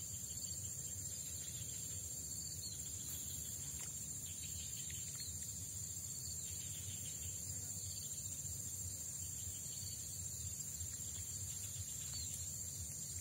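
Insects chirring steadily in one continuous high buzz, over a low, even background rumble, with a few faint short chirps here and there.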